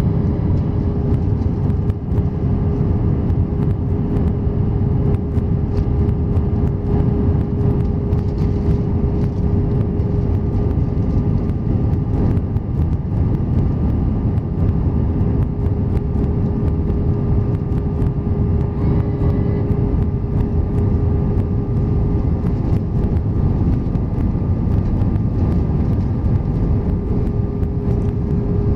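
Cabin noise of an Airbus A320 airliner on approach, heard from a window seat over the wing: a steady low rumble of airflow and jet engines with a constant hum tone running through it.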